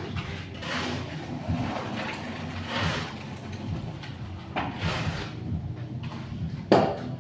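A long-handled tool scraping and pushing through wet concrete in swishes about every two seconds, with one sharp slap near the end. A steady low machine hum runs underneath.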